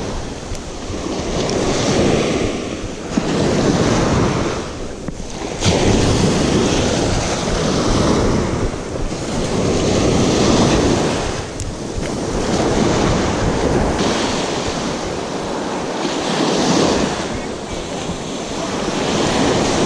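Surf washing up a sandy beach at the water's edge, with wind rumbling on the microphone; the rush swells and fades as the waves come in. A couple of sharp clicks stand out along the way.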